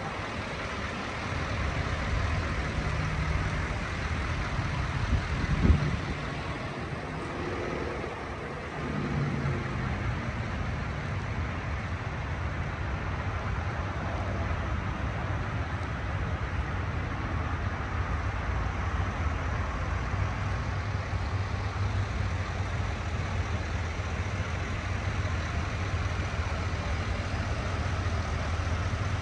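2020 Chevrolet Silverado 2500HD engine idling steadily, with a single sharp knock about six seconds in.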